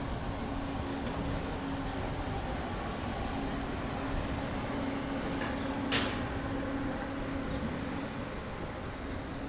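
A train at the station with a steady low hum over a noisy background, and one sharp click about six seconds in.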